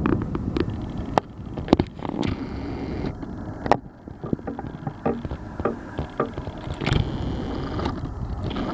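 Helicopter flying overhead, a steady low rumble, with irregular sharp clicks and knocks on top.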